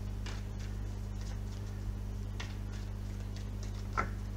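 Oracle cards being shuffled by hand: soft flicks and slides of the cards, with a sharper tap near the end, over a steady low hum.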